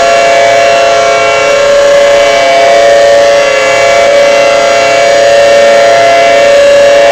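Federal Signal 2T22 dual-tone siren sounding a steady, loud two-tone chord, its loudness swelling and easing slightly.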